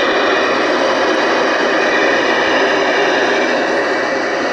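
Loud, steady static hiss from the Ranger RCI-2950CD transceiver's speaker as it receives, with a few faint steady whistles in the hiss.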